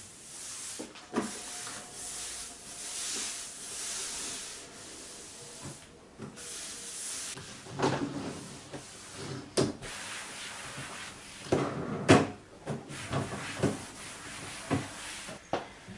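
Cloth wiping down a desk top and the inside of its drawer with a steady swishing rub. Several sharp knocks and clatters come from handling the desk and drawer, the loudest about twelve seconds in.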